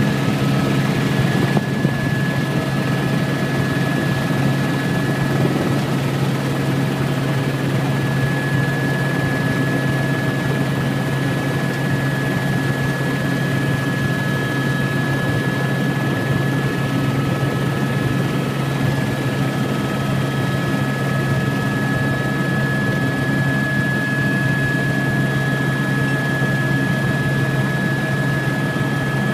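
Helicopter engine and rotor noise heard from inside the cabin in flight: a steady drone with a constant high whine.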